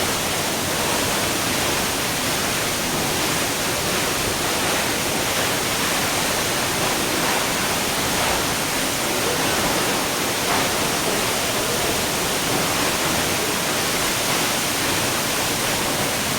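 Large monsoon waterfall falling from a great height: a loud, steady rush of water.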